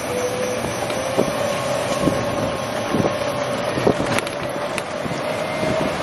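Golf cart driving along a paved path: a steady motor whine that slowly rises in pitch, over wind noise on the microphone, with a few short rattles and knocks from the cart.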